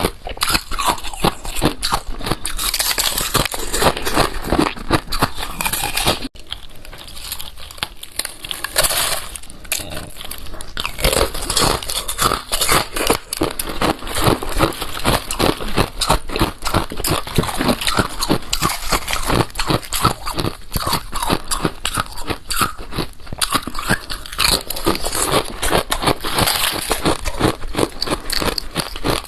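Close-miked crunching and chewing of balloon ice: dense, rapid crackling crunches of ice breaking between the teeth, with a short lull about six seconds in.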